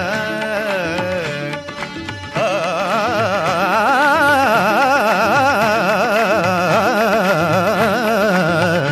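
Live Indian devotional music with harmonium accompaniment. A bending melodic line gives way, about two and a half seconds in, to one long held note with a fast, wide vibrato.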